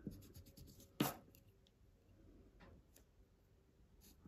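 Mostly quiet, with a sharp tap about a second in and a couple of fainter ticks later: a pencil being turned over and tapped against the drawing paper on a wooden desk.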